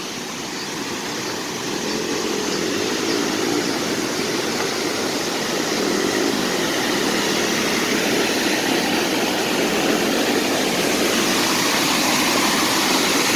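Rushing water of a waterfall: a steady, even roar that grows gradually louder.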